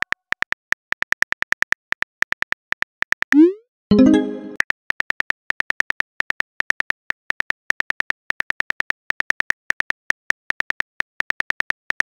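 Phone-keyboard typing clicks, a quick irregular run of short tapping ticks, broken about three seconds in by a rising swoosh and a short chime as a text message is sent, after which the typing clicks resume.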